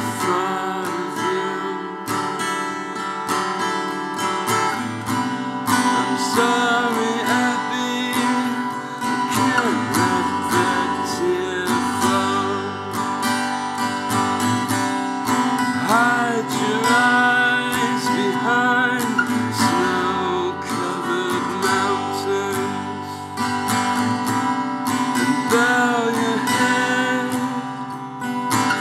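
Acoustic guitar strummed steadily through a song, with a man's voice singing over it in places.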